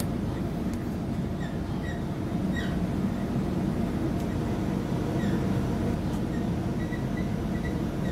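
Steady running rumble of an electric passenger train heard from inside the carriage, with short high squeaks recurring about once a second.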